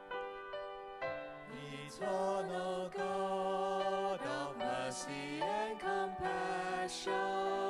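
Slow devotional hymn: piano playing, with a singing voice coming in about a second and a half in and carrying the opening line over the piano.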